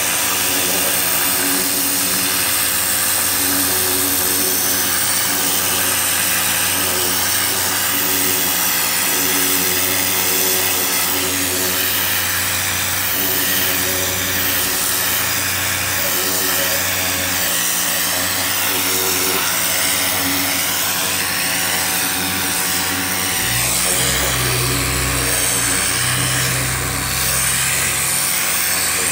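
Hart 2000 PSI electric pressure washer running steadily: the motor and pump hum under the hiss of the water jet spraying onto carpet. A deeper low rumble joins for a few seconds near the end.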